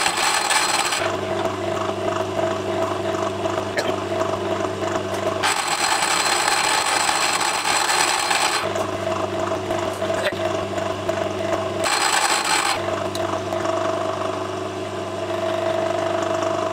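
Metalworking lathe running with a steady motor hum while a parting tool cuts a groove in the spinning bar. A brighter, higher cutting noise comes and goes in three stretches, the longest lasting about three seconds in the middle.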